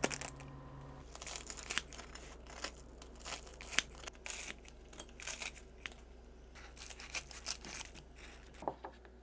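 Kitchen scissors snipping through crispy Korean fried snacks (twigim) on a paper towel: a run of irregular crunchy snips with paper rustling, after a sauce sachet is torn open at the start.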